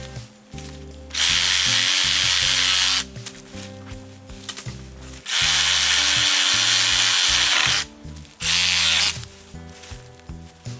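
A power saw cutting wood in three bursts: two long cuts of about two seconds each and a short one near the end, each starting and stopping abruptly. Background music plays underneath.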